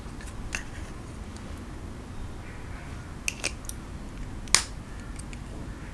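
Handling of metal diamond painting pens: scattered sharp clicks and taps of the pen parts. There is a single click about half a second in, three quick clicks a little past the middle, and the loudest click about a second after those.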